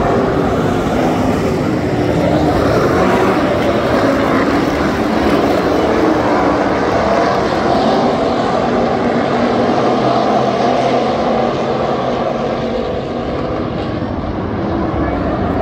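A field of USRA stock cars racing on a dirt oval, many V8 engines running at once in a loud, continuous drone, their pitches wavering as the cars circle. The sound eases slightly near the end.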